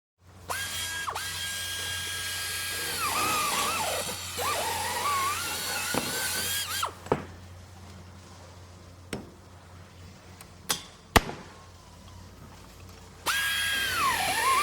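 Power drill running with a high whine that holds steady, then dips and wavers in pitch, stopping about seven seconds in. A few sharp knocks come during the pause, and the drill starts up again near the end.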